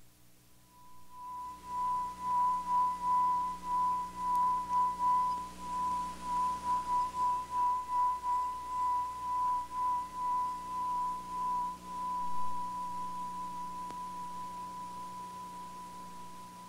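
A single sustained high pure tone from the added soundtrack music, pulsing in loudness a couple of times a second; it starts about half a second in and slowly fades over the last few seconds.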